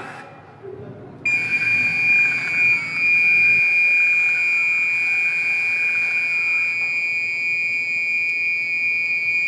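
Fire alarm sounder giving one continuous, steady, high-pitched electronic tone. It breaks off briefly at the start and resumes about a second in. It is still sounding because the fire alarm system has not yet been reset after the test.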